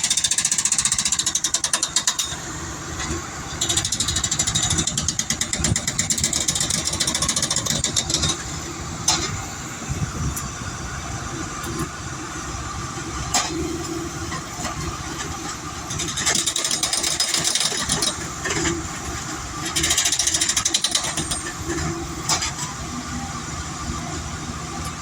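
Railroad track machinery running, with repeated bursts of rapid hammering a few seconds long from a spike driver setting spikes into new ties during tie replacement, and a few single sharp knocks between them.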